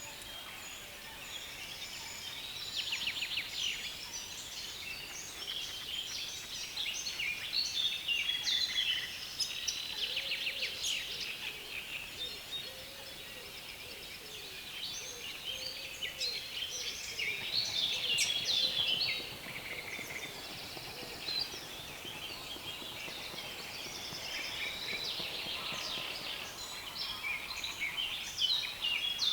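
A chorus of birds in a reedbed, several singing over one another in a continuous fast, chattering song. A few soft, low calls can be heard under it in the middle.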